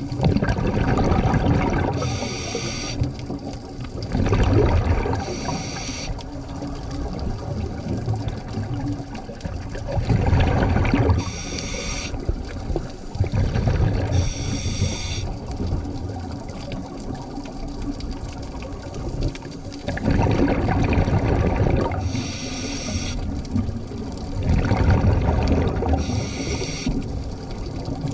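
Scuba diver breathing through a regulator underwater: bursts of rumbling exhaust bubbles, about five, alternating with short high hisses every few seconds.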